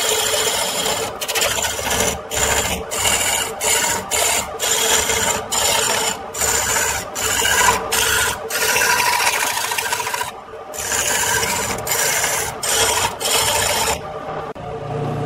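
Turning gouge cutting a large wooden cylinder spinning on a lathe: a loud, steady hiss of shavings being peeled off, broken by many short pauses as the tool is lifted and set back in. About a second before the end the cutting stops and only the running lathe is left.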